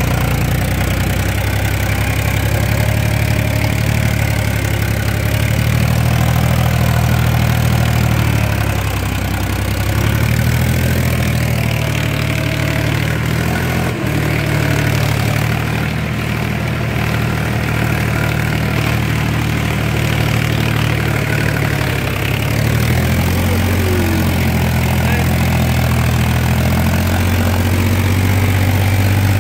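A farm tractor's diesel engine running steadily as it drives through a wet paddy field, heard close from the driver's seat; its pitch dips and rises a few times.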